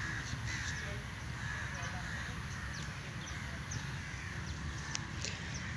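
Faint bird calls over a steady outdoor background, with a few light ticks near the end.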